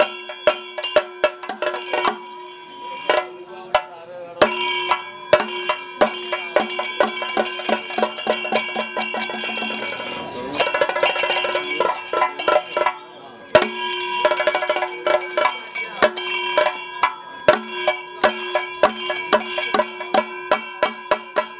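Traditional percussion music: quick drum and cymbal strokes, about four a second, over ringing metallic tones, with a brief drop about thirteen seconds in.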